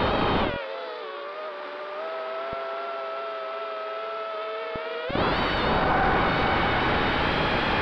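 A small quadcopter's electric motors and propellers whining, heard from its onboard camera with wind rushing past. About half a second in the throttle comes off, the whine drops in pitch and the rush fades, and about five seconds in the throttle comes back on with a rising whine and loud wind noise.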